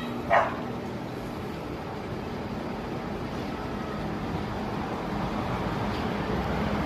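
Steady background noise of distant road traffic, with one short, sharp sound about a third of a second in.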